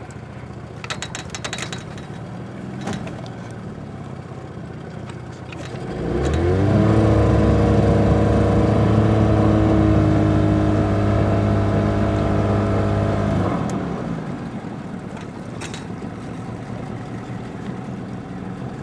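Pontoon boat's outboard motor running low, then throttled up about six seconds in to a steady, louder drone that holds for about seven seconds before easing back down as the boat is maneuvered in to dock. A few sharp clicks or knocks come near the start and again near the end.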